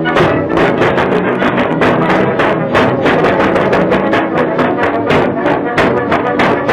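Lively instrumental cartoon music with a quick, steady run of percussive beats, about five a second.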